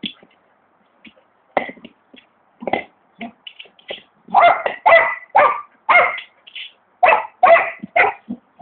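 Spanish Water Dog barking repeatedly in short calls, a few scattered at first, then a fast, louder run of barks from about four seconds in.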